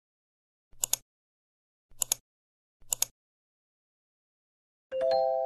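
Intro sound effects: three short bursts of quick clicks, about a second apart, then near the end a chime of three tones struck together that rings on and slowly fades.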